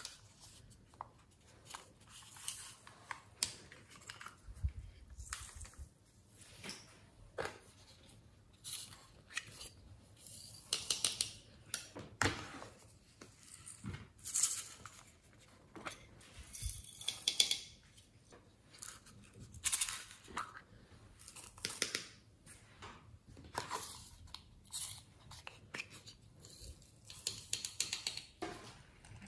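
Glitter and sprinkles rattling and trickling out of small plastic containers, mixed with clicks and taps of plastic being handled. The sounds come in a long string of short, scratchy bursts about every second or two.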